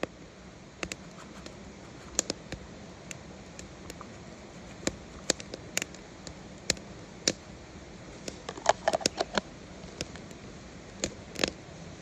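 A small plastic food container tapped and shaken over a paper instant-noodle cup, with dried chili flakes and chicken-stock granules falling into it. The sound is a string of irregular sharp clicks and taps, with a quick cluster a little after the middle.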